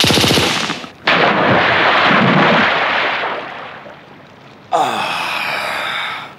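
Submachine-gun burst, a rapid run of shots that stops within the first second. It is followed by a loud rushing noise that fades over about three seconds, then a pitched cry sliding down in pitch about five seconds in.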